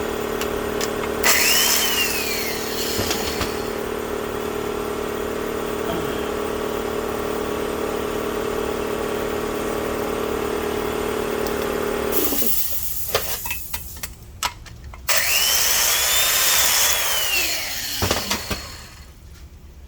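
Sioux electric valve-seat grinder running, its motor humming steadily while the stone grinds a cylinder-head valve seat, with a harsh grinding burst about a second in. The motor stops about 12 seconds in. After a few clicks, another few seconds of harsh grinding follow near the end.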